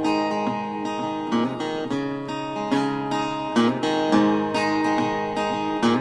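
Acoustic guitar playing a slow instrumental passage, chords ringing with new notes struck about twice a second, as the song's closing outro with no singing.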